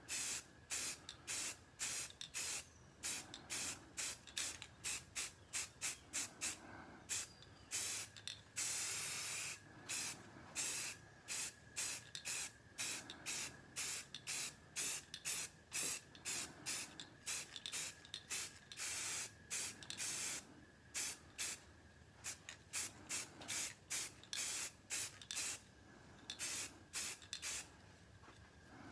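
Rust-Oleum 2X aerosol spray paint can hissing in many short bursts, about one or two a second, with one longer unbroken spray about a third of the way in, as a light coat of flat grey is laid down.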